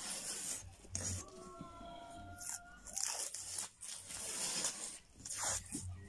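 Paintbrush scrubbing and dabbing paint onto a wall close to the microphone: a series of short, scratchy bristle strokes.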